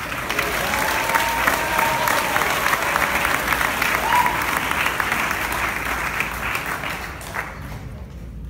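Audience applauding with many hands clapping. The clapping dies away near the end.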